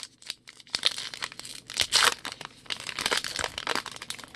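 Printed plastic wrapper of a baseball card pack crinkling in a dense run of sharp crackles as it is handled and opened. It begins just under a second in and is loudest about two seconds in.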